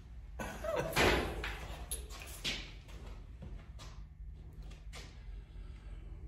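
A few short knocks and scuffs over a low steady hum, the loudest about a second in.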